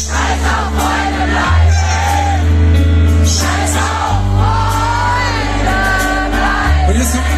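Live rock band playing while a concert crowd sings the chorus along with it, the bass moving to a new note about every two and a half seconds.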